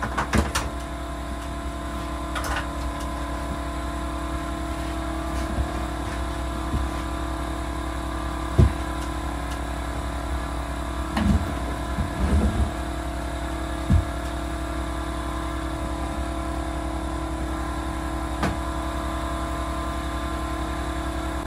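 A steady machine hum of several tones runs throughout, the background noise of the job. Over it come scattered sharp knocks and bangs from carpentry work on a wooden wall, with a small cluster a little past halfway.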